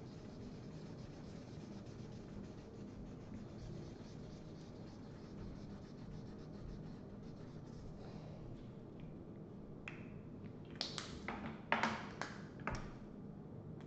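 Felt-tip markers scratching faintly on paper as pictures are coloured in. Near the end come several sharp clicks, as marker caps are pulled off and snapped back on.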